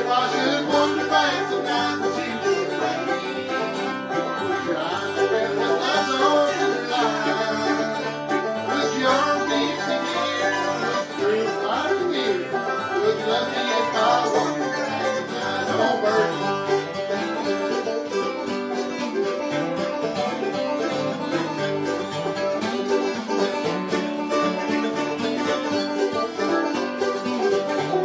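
Bluegrass music played live, with banjo picking over guitar backing.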